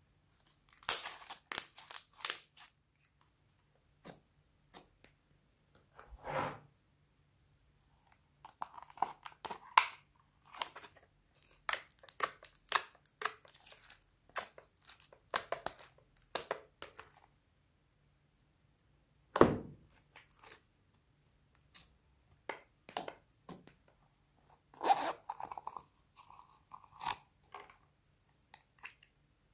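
Slime being stretched, pulled apart and scooped out by hand, crackling and snapping stickily in short bursts with pauses between. There is one louder dull thump about two-thirds of the way through.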